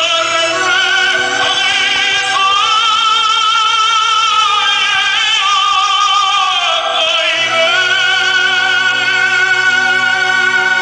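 Operatic music: a singer with wide vibrato holds long notes over an accompaniment, the melody rising about two seconds in and falling back near seven seconds.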